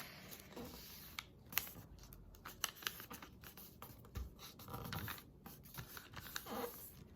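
A sheet of paper being folded and creased by hand: faint, scattered rustling and scraping as the folds are pressed down.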